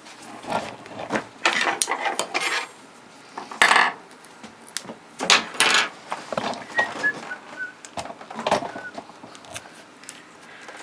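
Vinyl electrical tape being pulled off the roll in short, irregular noisy pulls and wrapped around a wire connection, with clattery handling of the parts in between.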